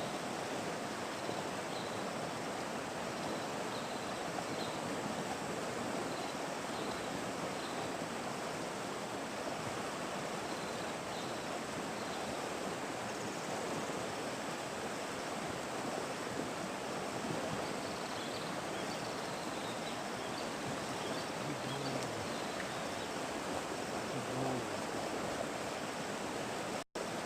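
Steady rush of flowing river water, with faint short high chirps repeating about once a second above it.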